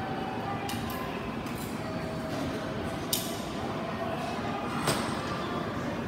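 Steady background noise of a train station concourse, with a couple of sharp clicks about three and five seconds in.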